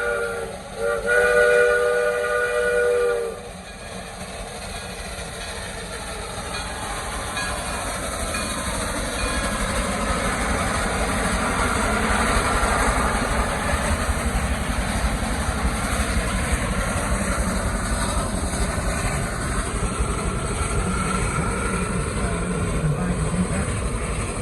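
Chime steam whistle of Dixiana Shay No. 1, a geared steam locomotive, sounding a chord of several notes, broken briefly near the start and then held until about three seconds in. Then the train rumbles and clatters on the rails as it passes, growing louder until about halfway through and staying steady.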